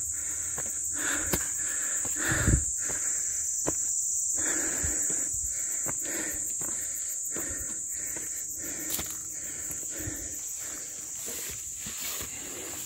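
A steady, high-pitched chorus of insects, crickets or cicadas, with irregular footsteps on a forest trail beneath it.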